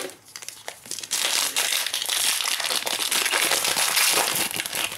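Plastic foil wrapper of a Panini Prizm basketball card pack crinkling as it is handled and torn open by hand. There are a few crisp clicks at first, then dense crackling from about a second in.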